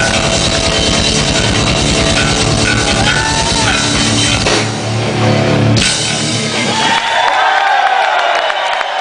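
Live rock band with electric guitars and a drum kit playing loudly, ending on a final hit about six seconds in. The crowd then cheers, with whistles, near the end.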